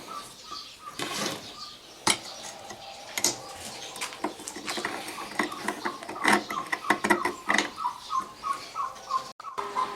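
Clinks and taps of steel on steel as broken machete pieces are handled and held in place for welding, with a rapid series of short high chirps in the background.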